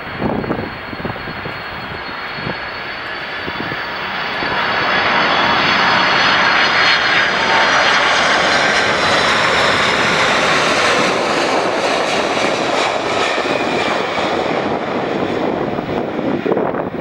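Four jet engines of a Boeing 747-400F freighter on landing, a loud jet rumble with a high whine. It swells about four seconds in, then holds steady.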